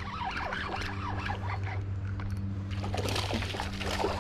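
Creek water trickling and splashing as a hooked smallmouth bass is fought, over a steady low hum.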